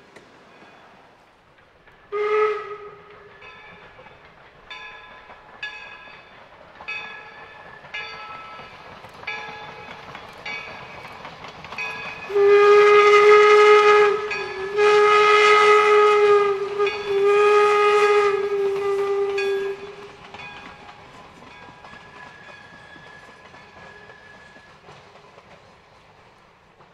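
Whistle of Northern Central Railway's oil-burning steam locomotive No. 17 'York': one short toot about two seconds in, then three long blasts about halfway through, the loudest sound here, as the train passes. Between them a bell rings about once a second, and afterwards the rumble of the passing train fades.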